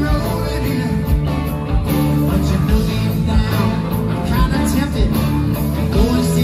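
Rock and roll music with guitar and a singing voice.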